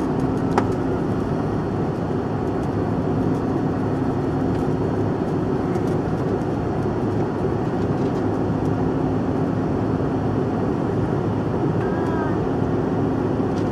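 Steady cabin noise inside a CRJ-700 regional jet in flight: rushing air and the drone of its rear-mounted General Electric CF34 turbofans, with a constant low hum. A brief click about half a second in.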